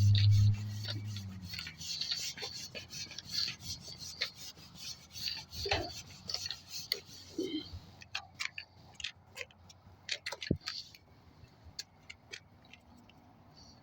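A rag rubbing and scrubbing grime off a garage door, a dense run of quick scrubbing strokes that thins to scattered scrapes after about halfway. A loud low hum cuts off about half a second in and fades away within the first two seconds.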